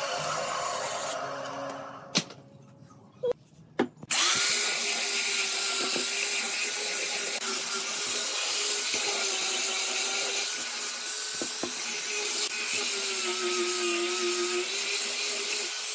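A band saw cutting wood fades out in the first two seconds. About four seconds in, an angle grinder with a sanding disc starts suddenly and runs steadily with a held whine as it sands the rim of a wooden wheel.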